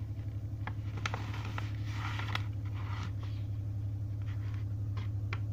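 Paper and a cellophane sleeve rustling and crinkling as a letter is unfolded and its contents handled, with scattered small clicks and a louder patch of rustling about two seconds in. A steady low hum runs underneath.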